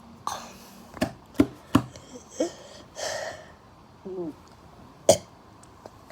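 A person burping: a string of about eight short, clipped burps. A few are sharp and quick in succession and a couple carry a brief wavering pitch.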